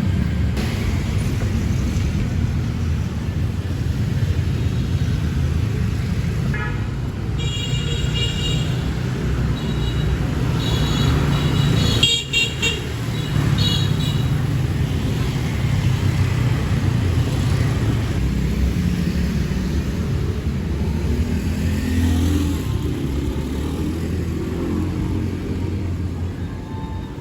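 Road traffic with a steady low engine and road rumble. Several short horn toots sound in a cluster between about seven and fourteen seconds in.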